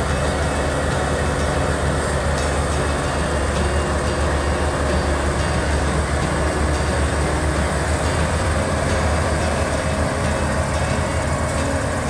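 Maxxi Bimo 102L rice combine harvester running close by, a loud, steady engine drone with continuous machinery noise.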